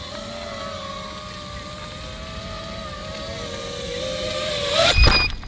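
Small quadcopter drone's propellers whining at a steady, slightly wavering pitch, which rises just before a loud thump about five seconds in. A brief high beep follows the thump.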